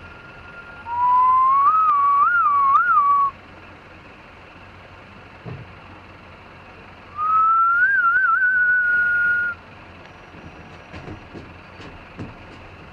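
Crow giving two clear whistle-like calls, each about two seconds long. The first rises and wavers up and down, and the second wavers quickly in the middle, over a steady hum of traffic.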